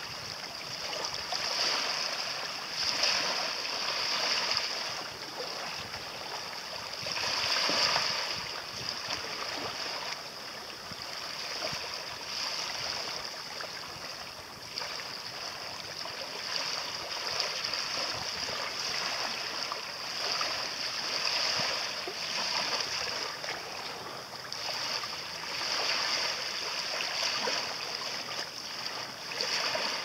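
Small sea waves lapping and washing at the shoreline, a steady rush of water that swells and ebbs every few seconds.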